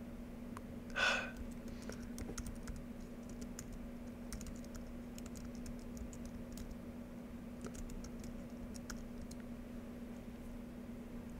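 Typing on a computer keyboard: scattered light key clicks as a terminal command is typed, over a steady low hum. A brief, louder sound stands out about a second in.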